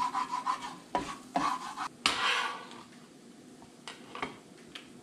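A metal utensil stirring and scraping eggs in a hot skillet, with quick clicks against the pan, for about two and a half seconds. Then a few light sharp knocks, as of a bench scraper on a cutting board.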